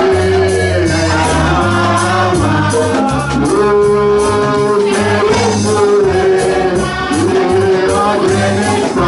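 A woman singing a gospel song into a microphone, holding long notes, over a live church band of keyboard and drums with a steady beat.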